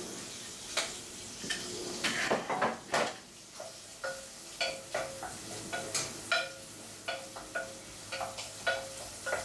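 Onions and garlic sizzling while being stirred in a metal pot, the spoon knocking and clinking against the pot; from about three and a half seconds in, the clinks ring out in a steady run of about two a second.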